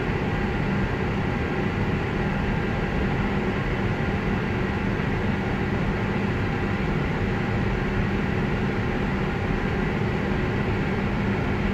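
Steady hum in an Airbus A319 cockpit on the ground: the engines at idle and the cockpit ventilation and avionics fans running, with several steady tones held throughout and no build-up of takeoff power.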